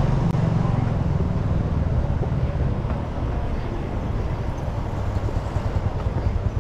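Low, steady rumble of a motor vehicle's engine running close by, a little louder for the first couple of seconds and then easing slightly.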